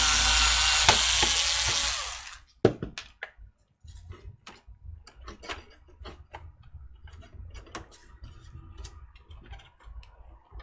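A powered screwdriver runs for about two seconds, backing out a screw from the PC's chassis, then stops. Scattered small clicks and taps follow as the screw and parts are handled.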